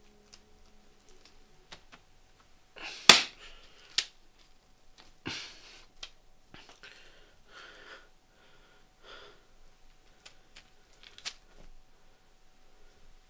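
A thin, stretchy translucent strip being pulled and handled, with a sharp snap about three seconds in and a smaller click a second later, then softer rustling and a few faint clicks.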